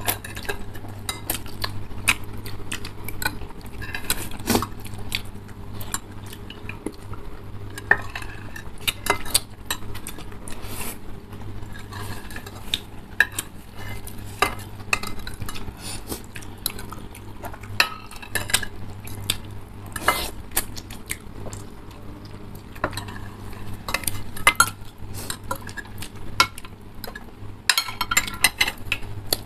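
Metal spoons and forks clinking and scraping against ceramic soup bowls while two people eat noodle soup, with slurping of noodles and broth. Many short irregular clicks sit over a steady low hum.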